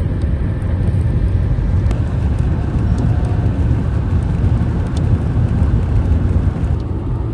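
Moving car's steady road noise: a continuous low rumble of tyres and engine while driving along the highway.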